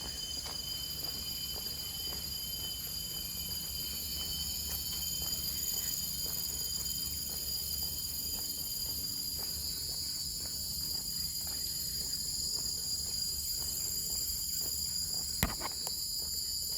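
Steady chorus of insects, several continuous high-pitched shrill tones held throughout, with faint footsteps on a path and one sharp click near the end.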